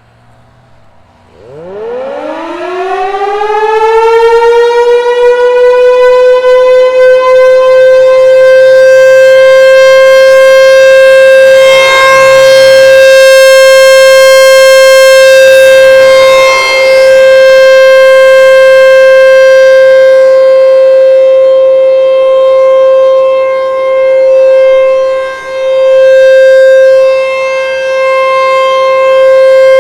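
American Signal T-128 outdoor warning siren sounding a full-alert test. About a second in it starts up, rising quickly in pitch to a single steady tone within a few seconds. It then holds that loud tone, dipping briefly in level now and then.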